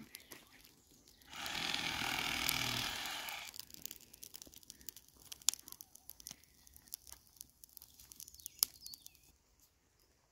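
Gorse and broom burning on a brush fire, crackling with scattered sharp pops. About a second in there is a rush of noise lasting about two seconds, and the crackling stops abruptly near the end.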